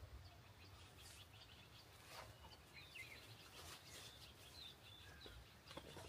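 Faint bird chirps and short calls, scattered and irregular, over a quiet outdoor background, with a few soft clicks.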